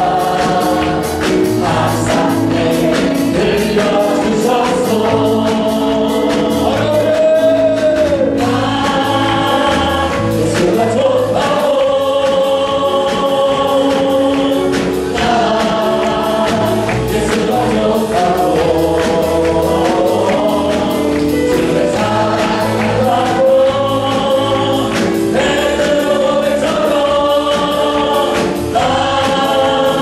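Live gospel praise song: a male worship leader sings held, rising and falling phrases through a microphone, with a group of voices singing along over band accompaniment with a steady beat.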